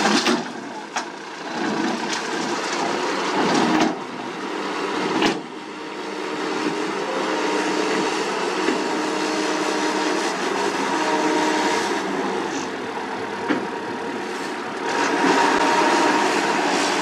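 Heavy diesel road-paving machinery running steadily, with a few sharp metallic knocks and clanks in the first few seconds.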